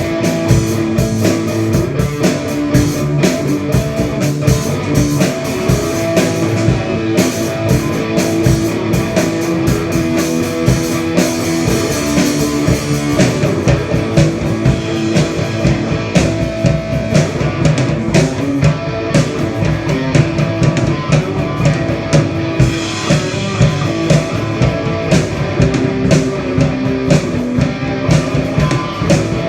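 Rock band playing at a sound check: guitar over a drum kit keeping a steady beat.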